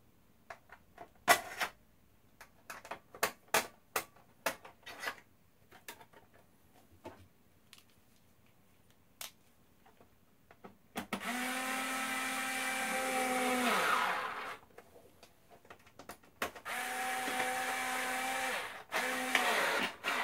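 Small electric screwdriver running in three spells, about three seconds, two and a half seconds and then a brief one, each winding down in pitch as it stops, while unscrewing screws to take the Xbox One apart again. Before it, light clicks and taps of screws and tools on the console's metal shield.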